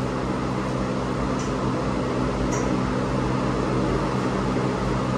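Electric fan running steadily: a rush of moving air over a low motor hum.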